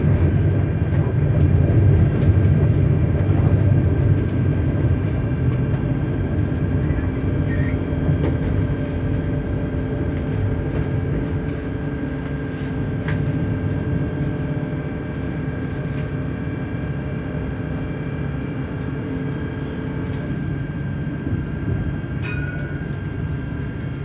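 Tram running on street track, heard from inside the car: a steady low rumble of wheels on rail with steady whining tones from the electric drive. The rumble is loudest in the first few seconds and eases after that.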